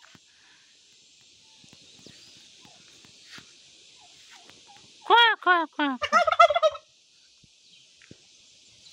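Domestic turkey tom gobbling once, about five seconds in: a fast, warbling run of notes lasting under two seconds.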